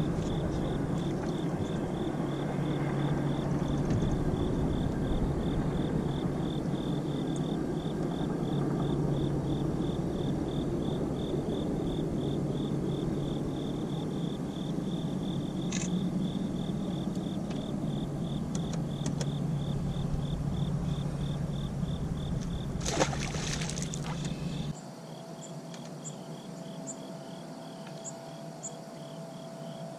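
Insects chirping in a steady, evenly pulsing rhythm over a low, steady hum. Near the end there is a brief rush of noise, and then the hum stops, leaving fainter, higher-pitched insect chirps.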